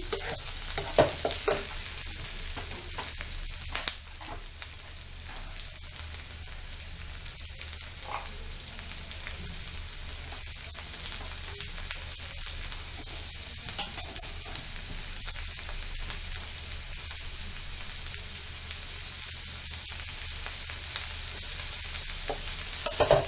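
Chopped onion, tomato and carrot sizzling steadily as they fry in a metal kadhai over a gas flame, with a wooden spatula now and then knocking and scraping against the pan.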